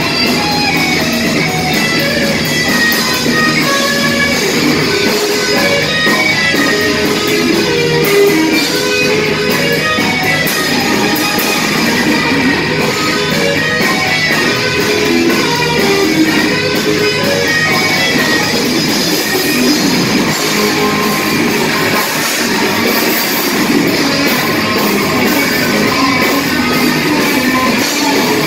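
Live rock band playing an instrumental passage with no singing: two electric guitars, bass guitar and drum kit, amplified through a PA and loud and steady throughout.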